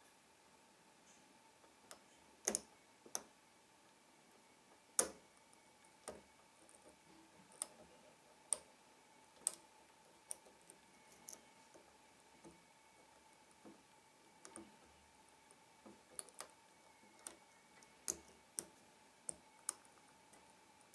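Irregular sharp clicks of a lock pick working the pins of a Trioving 5632 padlock under tension, some louder than others, over a faint steady hum.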